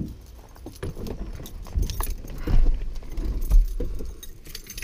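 Keys jangling amid a run of clicks, knocks and thumps as someone climbs into a pickup truck's driver seat, with a couple of heavier thumps about two and a half and three and a half seconds in.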